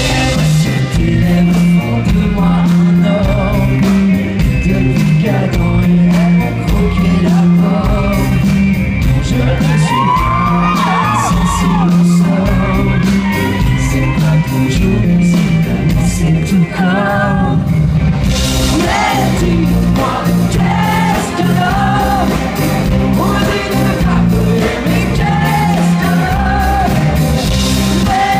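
Live pop-rock band with a man singing lead into a microphone, heard loud through the stage sound system.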